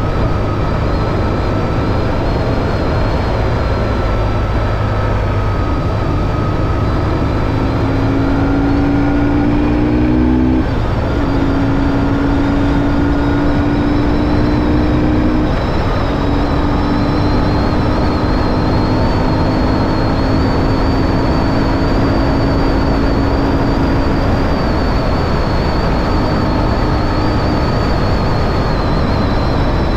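BMW R1150GS motorcycle riding at speed: its boxer twin engine running under a steady rushing of wind and road noise. The engine note climbs slowly and dips twice, about ten and fifteen seconds in.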